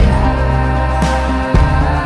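Background music: an instrumental stretch of a pop song with a steady bass and a few drum hits, no singing.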